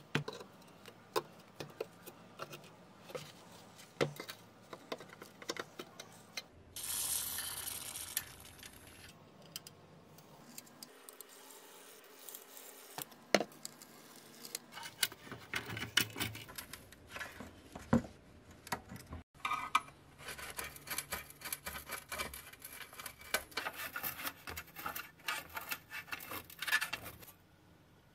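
Small screwdriver clicking and scraping against the rusty pressed-steel tabs of a toy truck plate as they are pried open, with a hiss of WD-40 aerosol spray for about two seconds early on. Near the end, quick clinks and scrapes come thick and fast as the loosened steel plates are worked apart.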